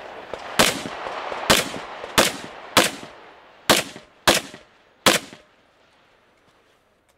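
Pistol fired in quick single shots: seven sharp cracks, spaced roughly half a second to a second apart, the last about five seconds in.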